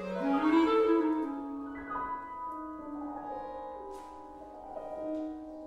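Contemporary classical chamber music: an instrumental line steps upward through several notes, then settles into long held tones, with one sharp click about four seconds in.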